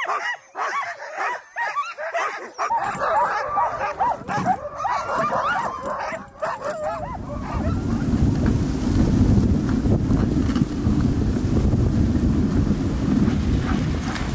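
A chorus of sled dogs in harness yipping, whining and howling, many overlapping calls that glide up and down. About seven seconds in the calls give way to a steady low rushing noise as the dog sled runs over the snow.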